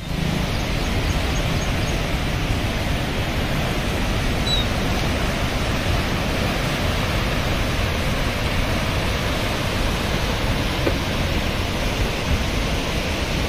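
Steady rushing roar of a river in flood, churning through rapids below a dam with all its gates open.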